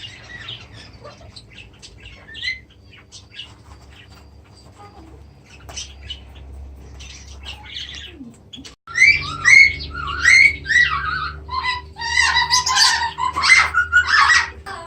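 Aviary birds chirping and squawking: faint, scattered chirps at first, then after a brief break about nine seconds in, much louder rapid chirping and squawking calls.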